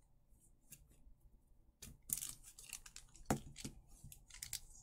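Light clicks, taps and scrapes of hard plastic statue pieces being handled and pushed into place, with the sharpest clicks about two seconds in and twice more about a second later.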